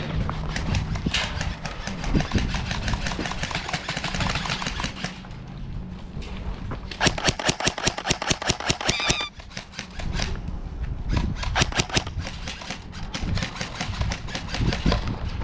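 Airsoft guns firing in bursts of rapid, snapping shots. The densest burst comes about halfway through and lasts a couple of seconds.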